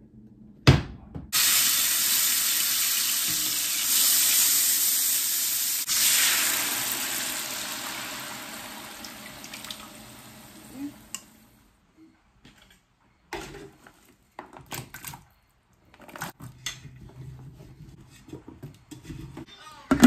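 Hot oil in a large nonstick stockpot sizzling loudly as seasoning and blended pumpkin purée go in. The sizzle starts sharply about a second in and dies away over the next ten seconds. It is followed by a few short knocks and clatters against the pot.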